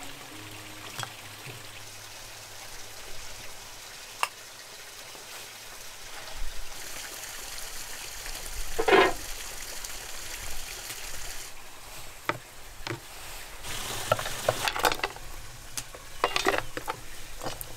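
Food sizzling in a hot pan while it is stirred, a steady frying hiss with scattered clicks and scrapes of the utensil against the pan, the loudest scrape about halfway through.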